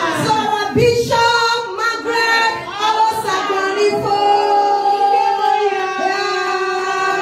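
A church congregation of mostly women's voices singing together, moving into one long held note about halfway through.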